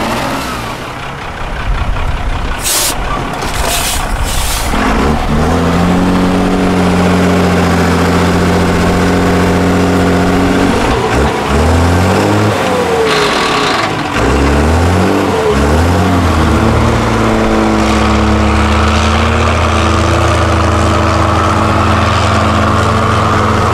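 Diesel engine of an off-road trial truck running at steady revs, its pitch dropping and climbing a few times midway as the revs change. Three short hisses come before the engine note settles in, about five seconds in.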